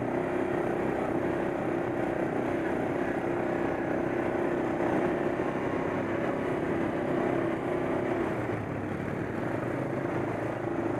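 ATV engine running steadily while riding a rocky dirt trail; its engine note drops about eight seconds in and picks up again near the end.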